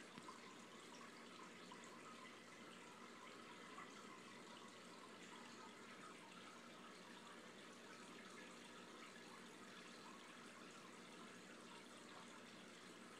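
Faint, steady trickle of water circulating in a fish tank.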